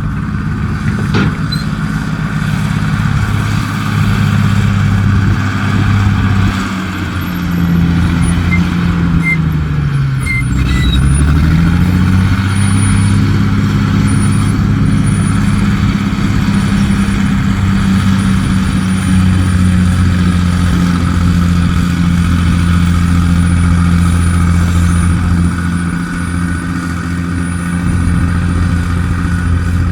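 Dump truck's diesel engine running steadily. About eight seconds in, its pitch sinks and then climbs back up again within a few seconds.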